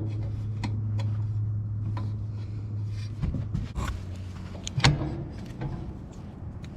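Metal clinks and knocks of plow-mount hardware as pins are fitted into the ATV plow bracket, over a steady low motor hum that stops about three seconds in.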